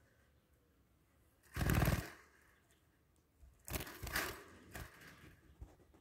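Budgerigars fluttering their wings inside a wire cage as they fly between the perch and the floor. There is one loud burst of fast flapping about a second and a half in, then a second bout of flapping and scrabbling around four seconds in, with clicks of feet or beaks on the wire bars.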